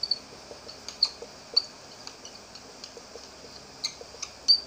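Whiteboard marker squeaking and tapping against the board in short, irregular strokes while writing, a few strokes a second, with the sharpest squeak near the end.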